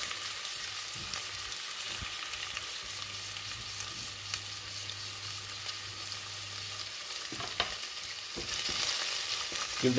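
Sliced red onions sizzling steadily in hot vegetable oil in a stainless steel pot. Near the end a wooden spoon stirs them, with a few light knocks against the pot.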